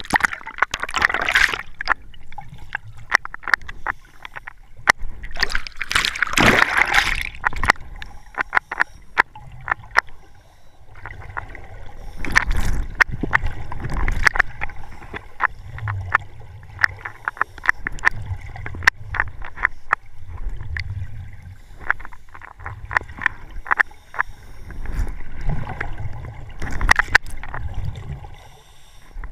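Water sloshing and splashing around the camera as it goes under, then muffled underwater noise: many sharp clicks and low gurgling swells of a scuba diver's bubbles every couple of seconds.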